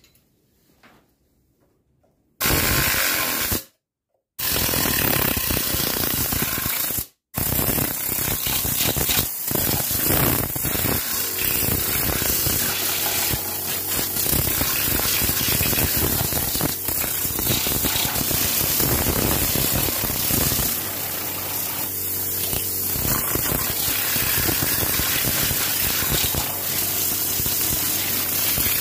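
Compressed-air blow gun hissing steadily as it blows over an engine bay. It starts about two seconds in, cuts out twice briefly as the trigger is released, then runs on without a break.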